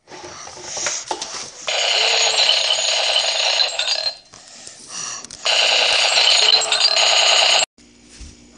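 An alarm ringing loudly in two bursts of about two seconds each, with a short quieter gap between them. The second burst cuts off abruptly near the end.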